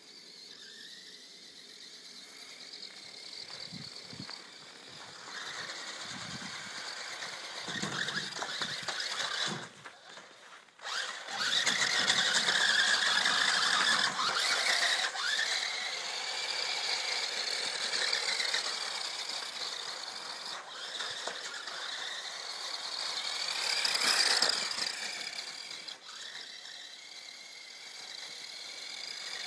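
Small electric RC toy car's motor and gears whining at high pitch, the whine rising and falling as the throttle is worked, with a brief drop-out in the middle.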